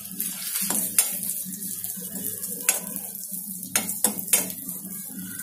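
Metal ladle stirring raisins in a black wok, scraping and clinking against the pan with a light sizzle of frying. Sharp clinks come about a second in, again near 3 seconds, and in a quick cluster around 4 seconds.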